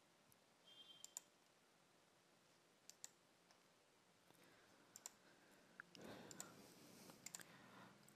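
Near silence with a few faint computer mouse clicks, spaced a second or more apart.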